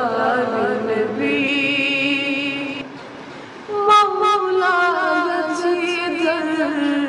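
A boy singing a Kashmiri naat (devotional poem in praise of the Prophet) into a microphone, in long held notes with wavering ornaments. His voice drops away briefly about three seconds in, then comes back in loudly on a new phrase.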